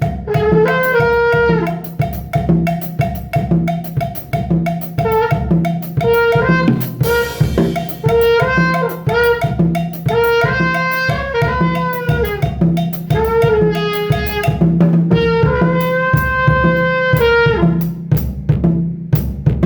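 Instrumental music: a held, pitched melody line, sax-like, over a steady drum-kit beat.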